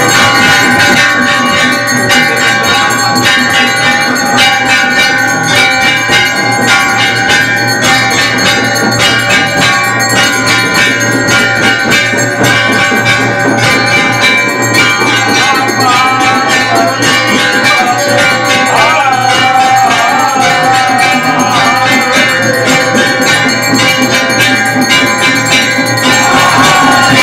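Many metal temple bells ringing together in rapid, overlapping strokes, loud and continuous.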